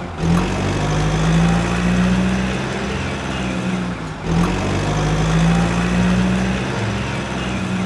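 Toy garbage truck's built-in engine sound effect: a recorded truck engine running steadily, playing as a loop that starts over about four seconds in.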